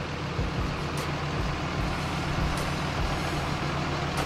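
A food truck's engine running steadily close by: an even, low drone with a hiss above it.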